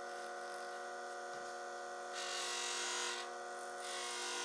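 Hobby bench grinder set up as a jewelry buffer, its small electric motor running with a steady whine. Twice, from about two seconds in and again near the end, a rushing rub is heard as the workpiece is pressed against the spinning cotton buffing wheel loaded with polishing compound.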